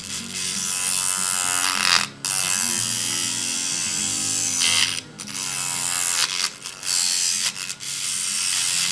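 A harsh, continuous grinding from a tool working the metal of a die-cast toy truck during wheel removal. It breaks off briefly a few times, about two, five and seven seconds in, over background music with a low bass line.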